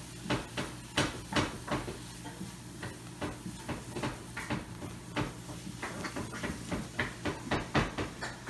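Irregular light clicks and scratchy rustling, two or three a second, from a baby alpaca and cats shifting about and pawing at a towel on a hardwood floor.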